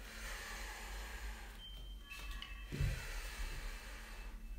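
A person breathing out hard while holding an abdominal crunch, two long breaths with a short pause between. A dull bump about three seconds in.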